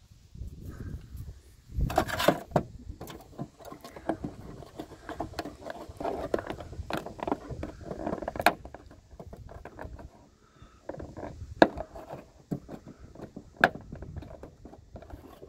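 Hands working behind a BMW E60 trunk-lid handle trim to unclip it: irregular rustling and handling noise with scattered sharp plastic clicks and knocks.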